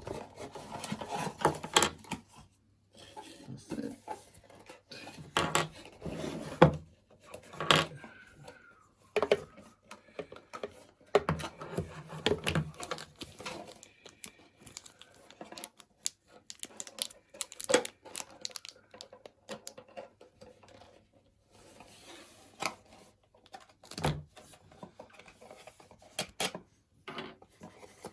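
Hands handling a GoPro Hero 8 camera and its parts and packaging: irregular clicks, taps and rustles of small plastic pieces.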